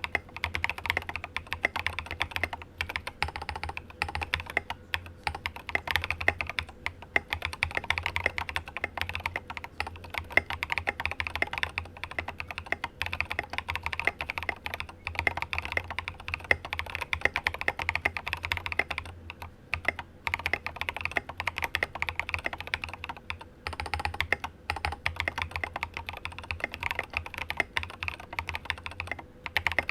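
Continuous fast typing on a mechanical keyboard with lubed Cobalt POM linear switches and tall SA-profile doubleshot ABS keycaps on a polycarbonate plate, giving a deep, thocky clack on each keystroke. The typing breaks off briefly twice in the second half.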